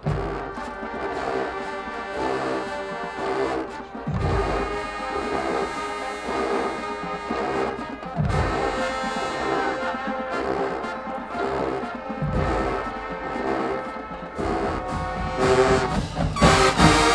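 High school marching band playing a brass-led tune, with a heavy low hit about every four seconds. The full band gets louder near the end.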